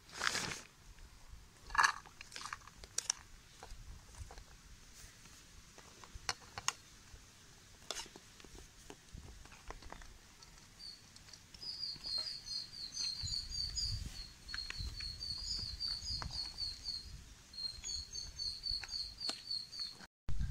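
A few sharp knocks and clatters as chopped vegetables are tipped into a ceramic bowl, the loudest about two seconds in. From about halfway on, a small bird chirps in quick high twittering runs.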